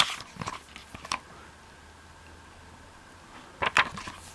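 A few short rustles of paper as a book's pages are handled, in the first second and again shortly before the end, over a faint low hum.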